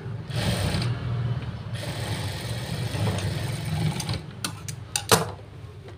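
Electric sewing machine running steadily as it stitches a sleeve seam, stopping about four seconds in. A few sharp clicks and a louder knock follow.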